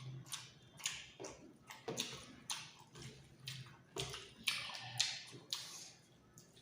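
Close-up wet chewing and lip-smacking of a person eating, with sharp moist clicks about twice a second.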